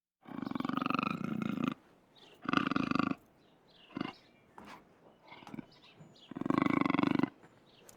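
A farm animal calling: three long, pitched calls, with a few faint short clicks between them.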